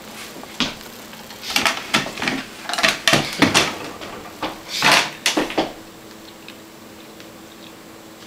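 A run of knocks, clatters and short scrapes as a person moves about a kitchen and pulls out a wooden chair to sit at the table. The noise is heaviest from about one and a half to five and a half seconds in. A few faint ticks follow.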